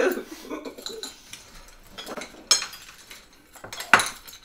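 Spoons held in the mouth clinking against bowls as candy conversation hearts are scooped and dropped: a few scattered sharp clinks, the loudest shortly before the end.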